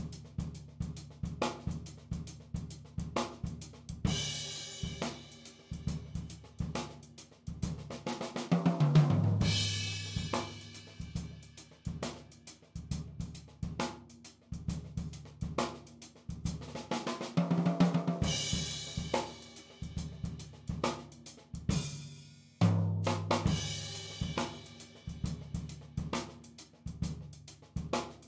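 Drum-kit groove as background music: steady kick, snare and hi-hat strokes, tom fills that fall in pitch, and a cymbal crash every few seconds.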